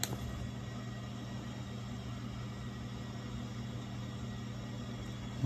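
Steady low hum of room tone, with one light click at the very start as the phone in its plastic case is handled.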